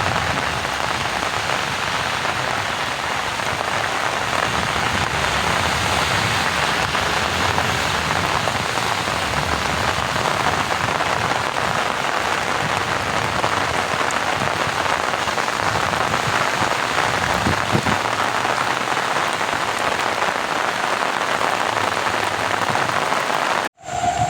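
Steady rain falling on flooded rice paddies, a dense even hiss, which cuts off abruptly near the end.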